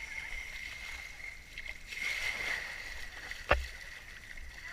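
Outdoor boat-and-water ambience with a low rumble of wind on the microphone and a steady high tone, broken by one sharp knock about three and a half seconds in.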